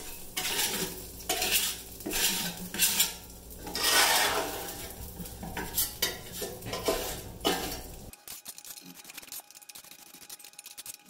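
Metal spatula scraping the stainless-steel plate of a hot electric flat-top griddle in quick repeated strokes, about two a second, clearing burnt-on grease and food residue. The scraping dies down about eight seconds in.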